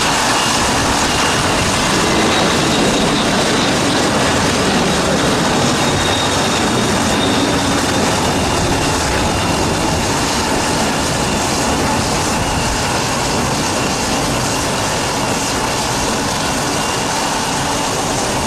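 Kawasaki C-2 military transport's two General Electric CF6 turbofan engines at take-off thrust as it lifts off and climbs away: a loud, steady jet rush with a faint high whine, fading slightly near the end.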